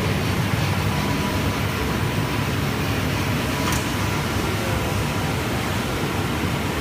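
Steady mechanical hum and rushing air of glass cutting line machinery running, with one faint click a little before the midpoint.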